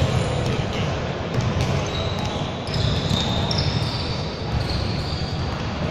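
Indoor basketball game: a ball dribbling on the court floor amid players' voices and shouts, with thin high squeaking tones from about two seconds in.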